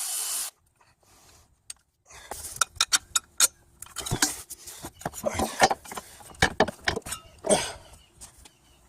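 Metal hand tools (wrenches and sockets) clicking and clinking in irregular bursts while the engine-mount bolts are worked loose, after a brief hiss at the start.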